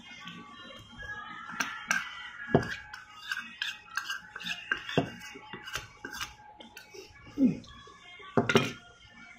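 Metal spoon clinking and scraping against a ceramic bowl as the last of the food is scooped out, a run of small clinks with a few louder knocks.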